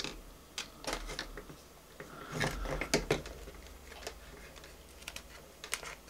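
Sharp clicks and scrapes of multimeter test probes tapping a mains plug's pins and the hair dryer's wire ends during a continuity check. About two seconds in, a brief steady beep from the digital multimeter's continuity buzzer signals a closed circuit.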